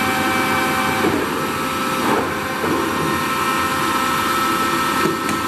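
Toolmex TUR 560 M engine lathe running: a steady mechanical whir with several steady whining tones from the headstock gearing. Some of the tones drop out about a second in, the sound dips briefly at about two seconds, and there is a click near the end.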